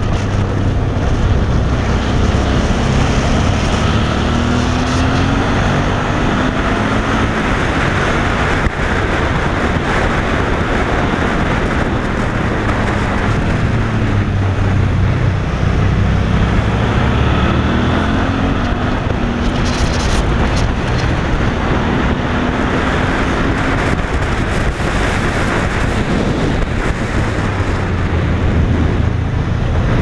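Motorcycle engine running under way, its pitch rising and falling several times with the throttle, under a steady rush of wind on the microphone.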